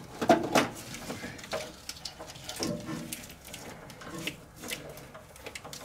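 Irregular clicks, knocks and rustles of a wiring harness and its plastic connectors being handled and pulled about in an engine bay.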